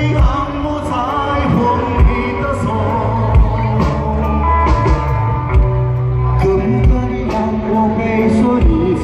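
Loud amplified rock-style music with a man singing into a microphone over bass and a regular drum beat.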